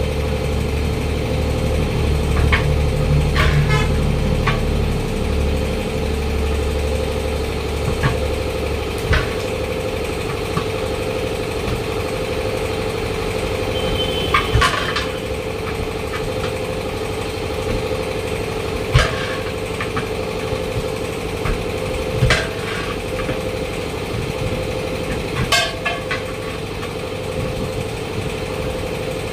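Steel tyre levers clanking every few seconds against the steel rim of a large JCB tyre as the bead is worked off, over a steady engine hum. A deeper engine rumble runs underneath for the first nine seconds or so, then drops away.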